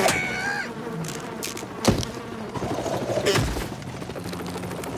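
Cartoon sound effects: a short squeaky gliding cry at the start, a sharp hit about two seconds in and a duller low thump about a second and a half later, over a busy bed of smaller effects.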